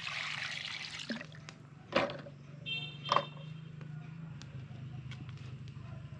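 Water poured from a plastic jug splashing onto raw fish in an aluminium pot to rinse it, stopping about a second in. Two sharp knocks follow, near two and three seconds in.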